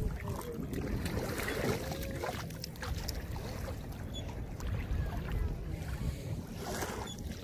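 Wind buffeting the microphone over moving water, with a few short splashes.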